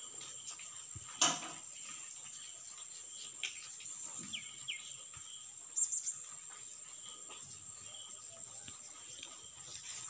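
Steady high-pitched insect drone, with a sharp click just after a second in and a few short bird chirps around four and six seconds in.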